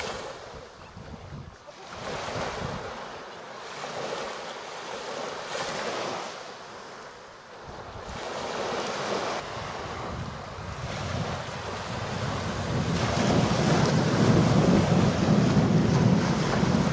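Sea waves washing on the shore with wind buffeting the microphone, swelling and ebbing every few seconds and growing louder with a low rumble in the last few seconds.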